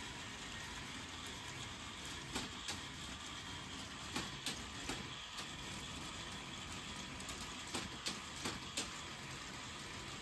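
K'NEX mechanical computer's motor-driven chain and gear train running with a steady mechanical noise, with scattered sharp pops from its transmission's safety mechanism slipping and re-engaging. The safety mechanism is set too sensitive, so the drive keeps pausing and popping.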